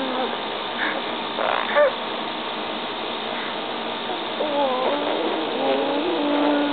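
Wordless mouth-made fart noises: a short buzzy burst about a second and a half in, then a long wavering pitched one in the second half, over a steady hiss.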